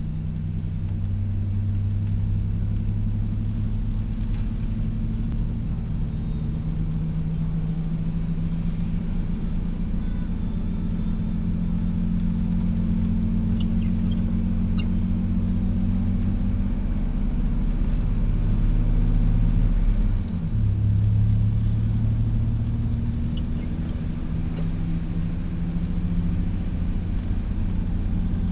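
Car engine and road noise heard from inside the cabin while driving: a steady low drone, with a brief dip and a shift in pitch about two-thirds of the way through.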